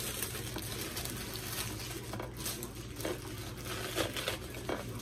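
A plastic produce bag crinkling as romaine lettuce is pulled out and its leaves are broken off, in scattered rustles and short snaps over a steady low hum.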